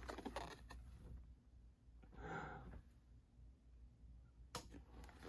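Near silence: room tone, with one soft breathy sound about two seconds in and a faint click near the end.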